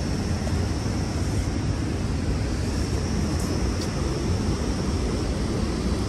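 Steady rush of a fast mountain river, an even, unbroken noise with a heavy low rumble.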